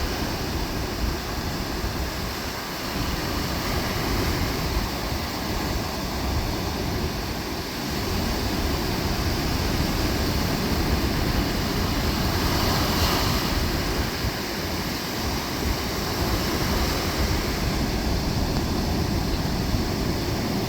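Ocean surf: waves breaking and washing up the beach in a steady rush that swells and eases, with wind rumbling on the microphone.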